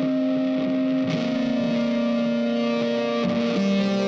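Background music of long held notes that change pitch about a second in and again about three and a half seconds in.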